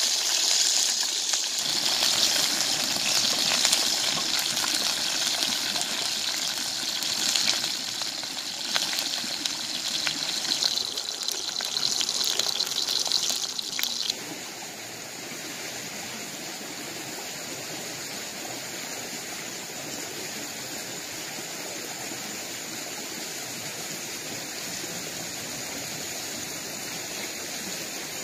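River water rushing and gushing, with scattered sharp clicks. About halfway through it cuts abruptly to a quieter, steady rush of running water.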